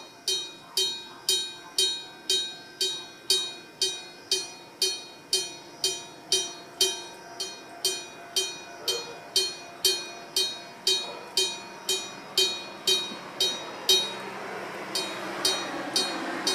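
Japanese AC electric-bell level-crossing alarm (Nippon Signal type) ringing: a mechanically struck bell clanging steadily at a little over two strokes a second. Near the end, the running noise of an approaching train builds up under the bell.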